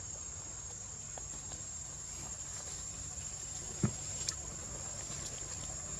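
Steady high-pitched insect chirring, constant in pitch, with two brief sharp snaps a little before and after four seconds in.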